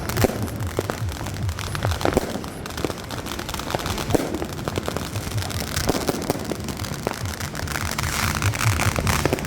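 Fireworks and firecrackers going off all around, with many overlapping bangs and crackles in a dense, unbroken barrage.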